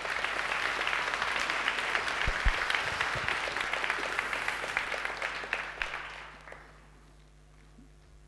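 Audience applauding, a dense patter of many hands clapping that fades out about six and a half seconds in, with a couple of low thumps about two seconds in.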